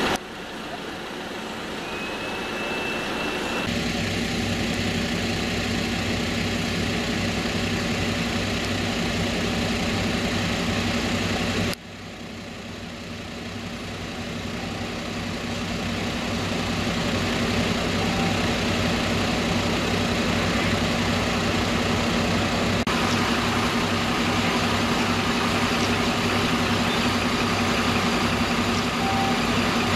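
Fire engines idling at an incident scene: a steady, low engine hum.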